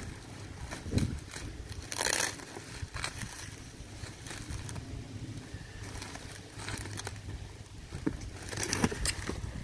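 Thin plastic wrapping rustling and crinkling in irregular bursts as it is grabbed and pulled, loudest about two seconds in and near the end, over a low wind rumble on the microphone.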